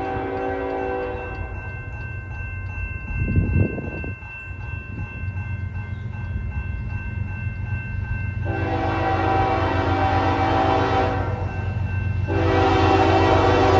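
Approaching diesel freight locomotive sounding its horn: one blast ends about a second in, then two long blasts follow, starting about 8.5 s and about 12 s in. The horn is growing louder as it nears. Under it run the low rumble of the locomotives and the steady ringing of grade-crossing signal bells.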